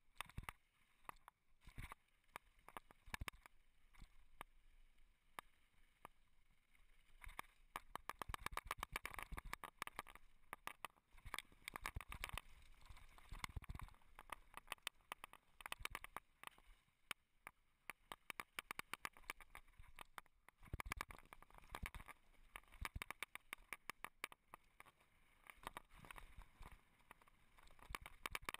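2011 Specialized Stumpjumper mountain bike descending a rough, rocky dirt trail: a rapid, irregular clatter of rattles and knocks as it runs over bumps, over a faint rush of tyre noise. The clatter thickens and thins with the roughness of the ground.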